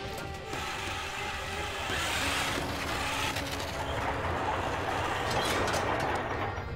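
Mechanical whirring and rattling of a small wheeled robot's motors and wheels as it moves over rocky ground, with a faint steady motor hum in the middle.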